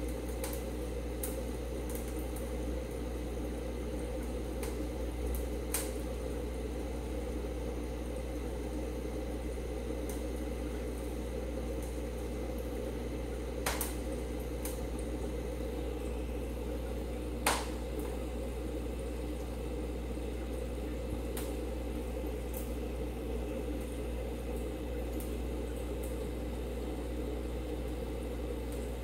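Aquarium air system running: a steady low bubbling and hum from the air pump and airline in a goldfish fry tank, with scattered sharp clicks.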